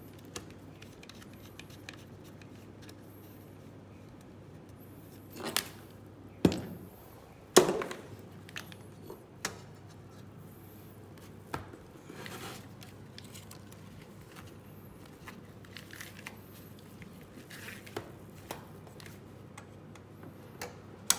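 Cables and plastic circular connectors being handled and plugged into a power-supply box: scattered clicks and knocks, the three loudest between about five and eight seconds in, over a faint steady hum.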